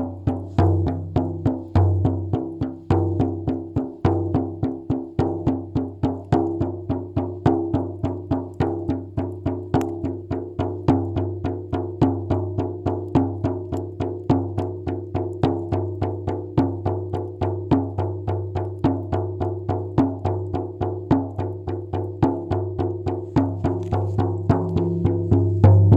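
Background music: a steady, fast drumbeat of about three to four strikes a second over a low sustained drone.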